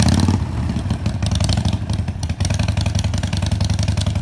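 Harley-Davidson Sportster 883's air-cooled V-twin running at low revs through its exhaust, with a steady, even pulse. It is a little louder in the first half second, then settles.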